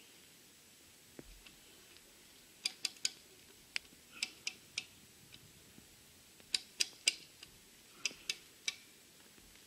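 Sharp metallic clicking in quick runs of two or three, repeated several times, from a steel chain and hand-worked lever puller taking up tension on a tree stump being pulled out by hand.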